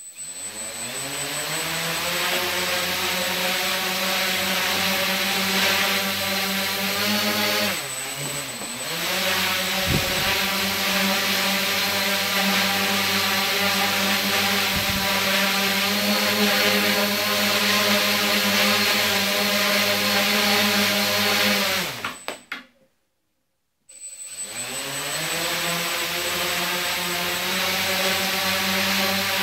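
Electric motors and propellers of a tethered homemade quadcopter spinning up and running at hover, a loud steady whir of several tones. About eight seconds in the pitch dips and climbs back; past twenty seconds the motors wind down and stop, and after a second or so of silence they spin up again.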